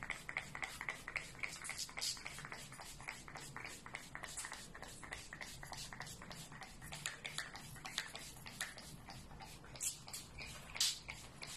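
Pump spray bottle misting starch solution onto a macramé cord leaf to soak it through: a quick run of faint, short spritzes, with a couple of louder ones near the end.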